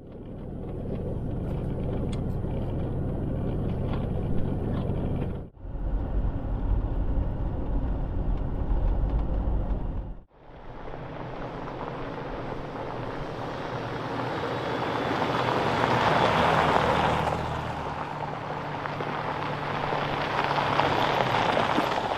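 Off-road truck driving on a trail: engine running steadily with tyre and road noise, swelling louder about three quarters of the way through. The sound breaks off abruptly twice where the shots change.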